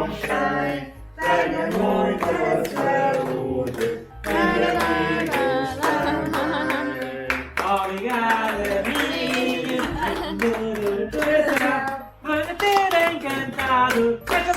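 A song with a sung vocal over instrumental backing and a steady bass line, in phrases with short breaks.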